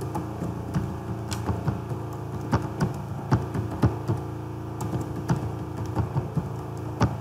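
Computer keyboard typing: irregular key clicks, some louder than others, over a steady low hum.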